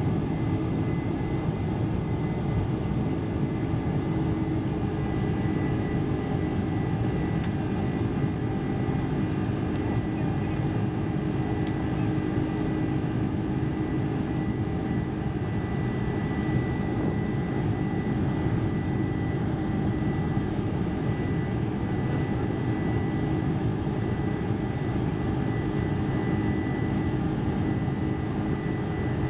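Boeing 747-400 cabin noise: a steady drone of the jet engines and rushing air, with a faint steady high whine above it.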